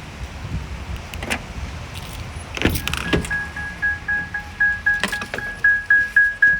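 Cab warning chime of a 2020 Ram ProMaster van beeping repeatedly at one pitch, about three to four beeps a second, starting about halfway through and growing louder. Before it come a few clicks and knocks of someone handling keys and the door over a low rumble of rain and wind.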